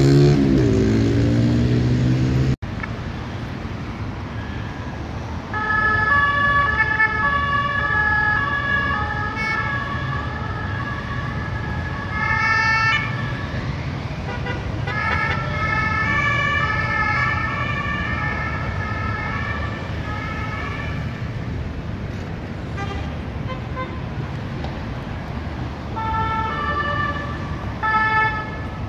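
Emergency vehicle two-tone sirens, switching back and forth between two notes over steady city traffic noise. They start about five seconds in, break off briefly, and come back in short bursts near the end. In the first two seconds a vehicle engine rises in pitch before it cuts off suddenly.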